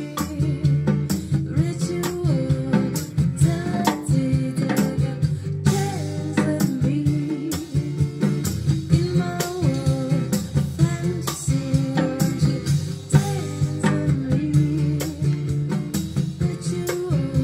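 Live acoustic band music: an acoustic guitar strummed over a small drum kit with cymbal, and a woman's voice singing.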